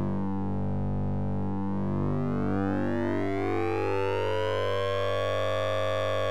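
Cartoon audio run through heavy electronic effects, giving a dense stack of synth-like tones with no words. The stack dips in pitch during the first second or two, then slides slowly back up over the next few seconds, like a siren, above a steady low hum.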